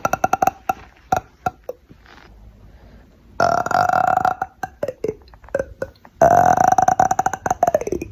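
A person burping on purpose: long, loud, drawn-out burps with a rattly edge, one more starting about three seconds in and another about six seconds in whose pitch drops as it ends, with short choppy burps between them.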